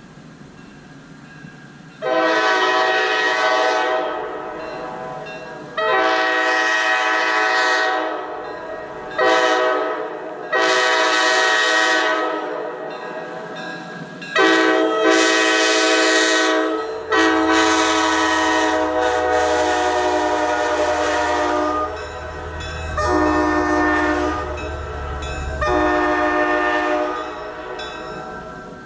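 Multi-chime air horn blown in about eight blasts of one to five seconds each, holding a steady chord. The longest comes just past the middle. A low rumble sounds under the later blasts.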